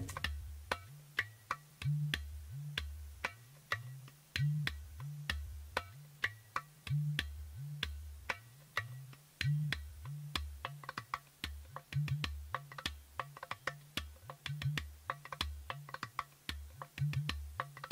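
Background music of drums: low drum notes repeating at a steady beat, with a dense run of sharp percussive clicks over them.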